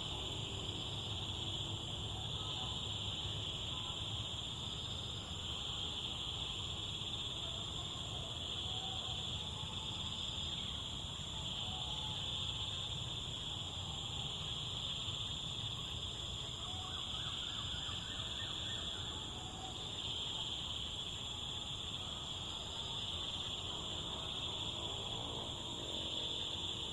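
A steady, unbroken high-pitched drone of insects, crickets or cicadas, is the loudest sound. Under it runs the low even rush of a flowing stream, with a few faint bird chirps near the start and again near the end.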